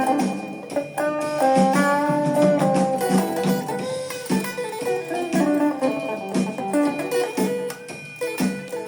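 Guitar playing a blues-style tune: picked single notes ringing over a repeating lower rhythm part.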